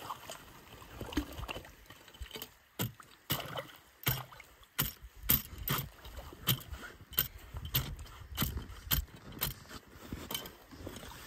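Repeated sharp chopping strikes into ice, coming roughly every half second to second, with water sloshing and gurgling between them.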